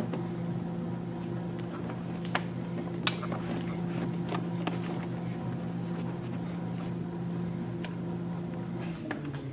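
Plastic intake tubes and rubber couplers of a cold air intake being handled and worked into place: scattered light clicks and knocks. Under them a steady low hum, which cuts out near the end.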